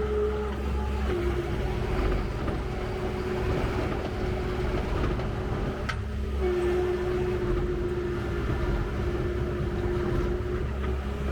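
Bobcat T630 compact track loader's 74 hp diesel engine running under work, with a low steady drone and a whine that drops in pitch about a second in and shifts again around six seconds. A sharp click sounds near six seconds.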